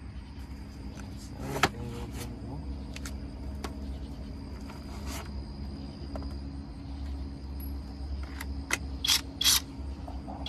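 Tool work under the hood: a series of sharp mechanical clicks and ratcheting over a steady low hum, with two loud short bursts about nine seconds in.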